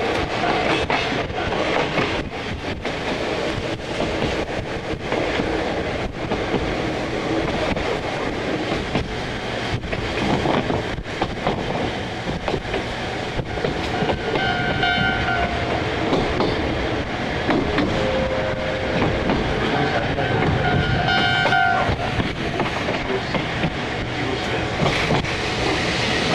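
Electric commuter train running on jointed track, with a steady rumble and repeated wheel clacks over the rail joints. About halfway through, and again a few seconds later, a level crossing's warning bells ring briefly as the train passes.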